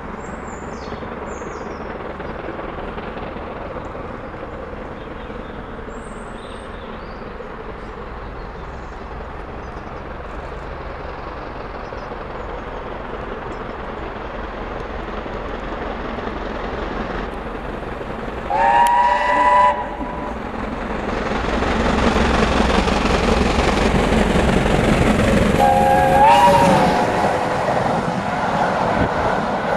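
BR Britannia class steam locomotive approaching at speed and working hard, its rumble growing steadily. It sounds its whistle twice, a short blast about two-thirds of the way in and another a few seconds later. Between the two blasts the noise swells sharply as the engine and its coaches rush past close by.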